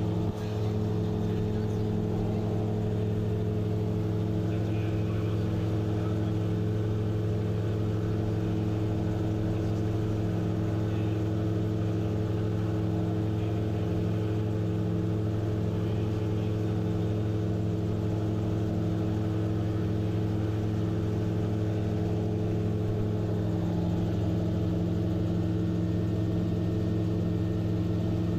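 Gyrocopter engine and propeller droning steadily in cruise flight, heard from inside the enclosed cockpit: an even, unbroken hum made of several steady low tones.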